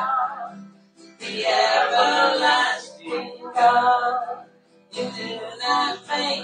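A song: singing over instrumental accompaniment, in phrases of a second or two with short breaks between them.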